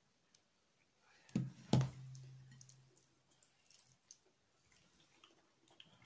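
A plate set down on a table: two knocks about a second and a half in, the second the loudest, with a brief low ring after them. Faint scattered clicks of handling follow.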